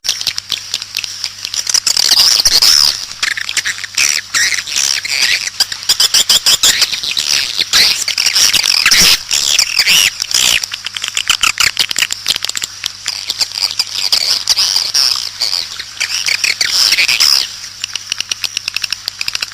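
Swiftlet lure call recording: dense chirping and twittering of swiftlets mixed with rapid clicking, over a steady low hum. The calls thin out near the end.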